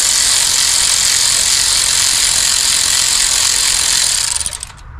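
Loud, steady rushing hiss with no pitch to it, fading out about four and a half seconds in.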